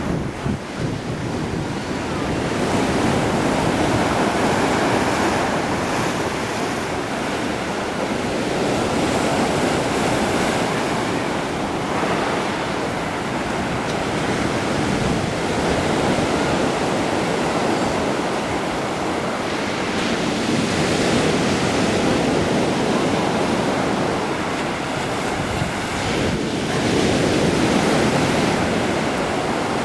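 Black Sea waves breaking on the shore, the surf swelling and easing every few seconds, with wind buffeting the microphone.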